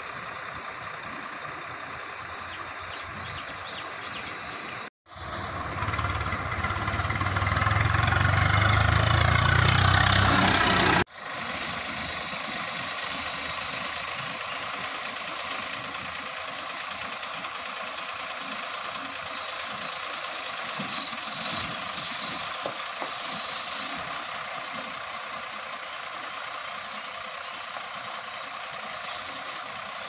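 Diesel engine of a loaded Ashok Leyland tipper lorry running steadily as the lorry reverses slowly. About five seconds in, after a brief dropout, the sound swells into a much louder stretch with a deep rumble for about six seconds, then cuts off abruptly back to the steady running.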